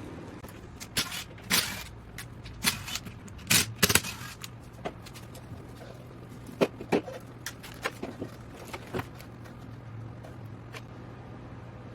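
Scattered sharp metallic clicks and knocks of hand tools and engine parts being handled during a two-stroke engine teardown. They are bunched in the first two thirds and sit over a steady low hum.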